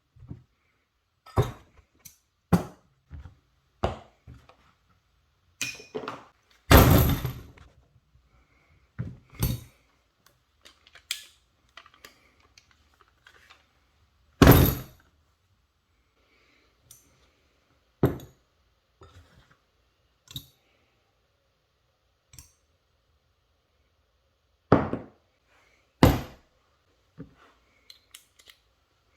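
Irregular knocks, clunks and clicks of hard objects being picked up and set down, as riflescope and mount parts are handled. There is a longer rattling scrape about 7 seconds in and a loud clunk about halfway through.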